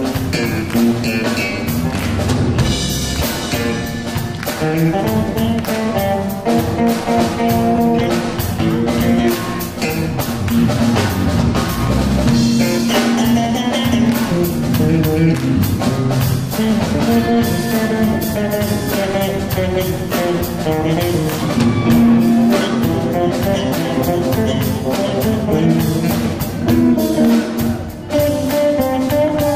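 A live band playing: electric guitars, bass guitar and drum kit.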